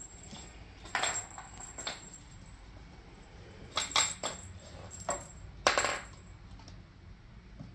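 Small plastic balls clattering and rattling around a wooden circular track toy as a kitten swats at them: about five short clatters, the loudest near the end.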